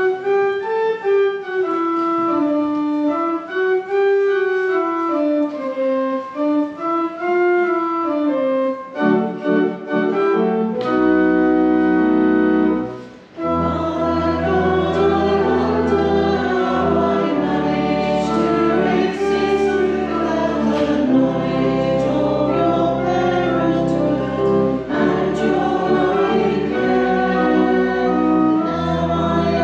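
Congregation singing a hymn with instrumental accompaniment. A single melody line carries the first few seconds; at about nine seconds a fuller accompaniment with held bass notes comes in, and from about thirteen seconds the singing is full and continuous.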